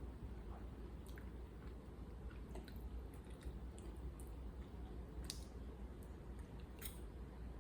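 A person chewing food close to the microphone, with soft wet mouth clicks and a few sharper clicks, over a steady low background hum.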